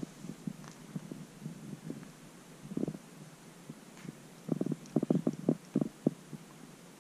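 Domestic cat purring close up: a low, rapidly pulsing rumble that comes and goes, strongest from about four and a half to six seconds in.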